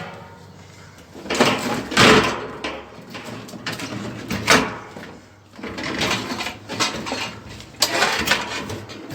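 Metal parts of a microwave being handled during dismantling: irregular clattering and scraping, with a sharp click at the start and a hard knock about halfway through.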